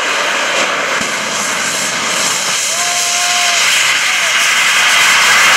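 Jet engine of a jet-powered golf cart running hard as the cart drives by, a loud steady rush that swells slightly near the end.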